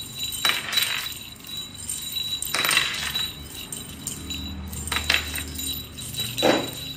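A small bell on a cat's collar jingling in a few short bursts as the cat moves.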